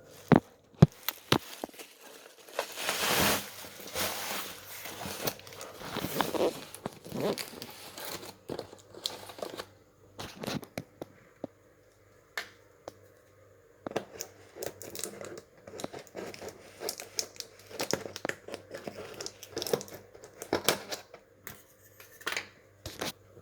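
Packaging being opened by hand: irregular crinkling and tearing, with sharp clicks and knocks from handling, and one longer tear about three seconds in.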